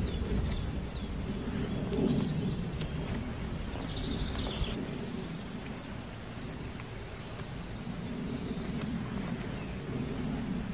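Heavy canvas rustling and shifting in soft swells as it is handled and smoothed out over moss. A small bird gives a brief chirping trill about four seconds in, with faint high calls later.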